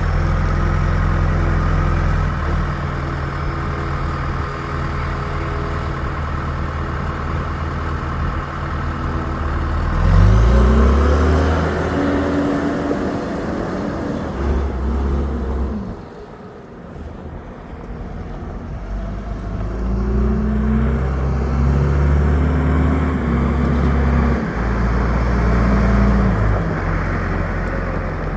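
John Deere 410G backhoe loader's diesel engine running steadily, then revving up twice about ten and nineteen seconds in. Each time it holds the higher speed for several seconds before dropping back, as when the machine is put to work.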